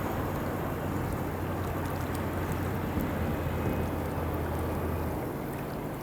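Heavy diesel engine of a Doosan DX300 excavator running steadily with a low hum, the lowest part of the hum easing off about five seconds in.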